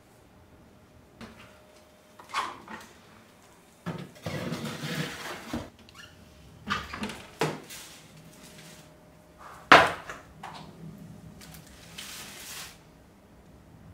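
Metal baking tray handled at an oven: a series of clattering knocks and scraping rustles, with the loudest sharp knock a little before ten seconds in.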